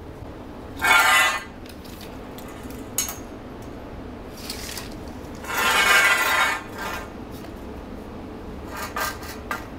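Steel tape measure blade pulled out with a short raspy zip about a second in, then reeling back in with a longer zip around six seconds. A few light clicks and knocks fall between them.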